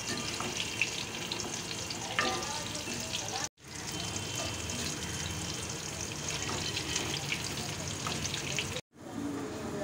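Batter-coated banana flower fritters deep-frying in hot oil in a kadai: a steady sizzle with fine crackles, as a slotted spoon turns them in the oil. The sound drops out twice for an instant.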